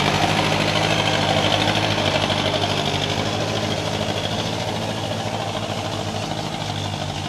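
Loaded Isuzu ELF dump truck's diesel engine running under load as the truck drives off, a steady clattering drone that slowly grows quieter as it moves away.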